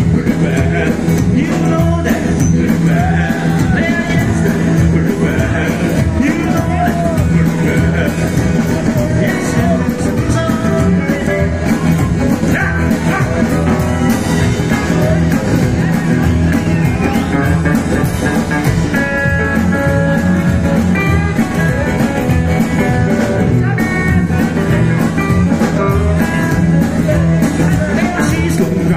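Live rockabilly band playing a blues number: upright double bass, drum kit and guitars, loud and steady.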